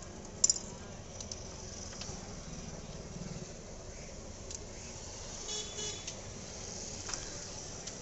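Steady outdoor background noise with one sharp click about half a second in and two short, high beeps a little past the middle.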